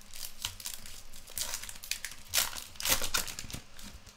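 Foil wrapper of a Finest soccer trading card pack being torn open and crinkled by hand, in short irregular crackling bursts, loudest about two and a half and three seconds in.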